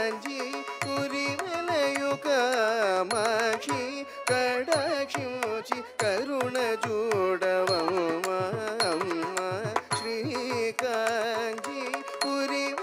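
Carnatic music accompanying a Bharatanatyam thillana: a sung melody full of sliding ornaments over a quick run of percussion strokes.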